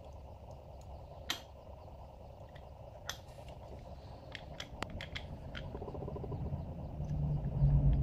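Small metallic clicks and taps of brake pads being fitted by hand into a motorcycle's front brake caliper, a few single clicks then a quick cluster about halfway through. A low rumble builds up near the end.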